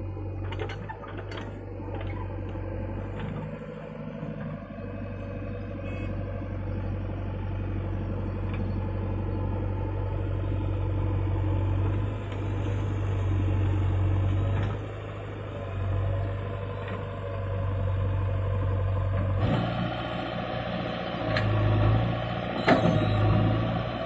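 Diesel engine of a JCB 3DX backhoe loader running under hydraulic load as it digs and loads soil, its steady low hum swelling and easing as the arm works. Metal clanks near the end.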